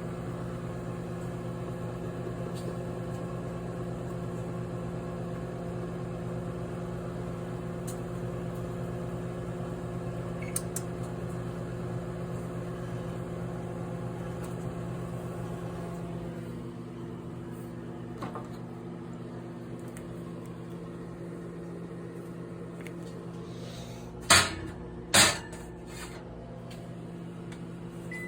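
A steady electrical hum with a low buzz, which drops a little in level partway through. Near the end come two loud, sharp clunks about a second apart.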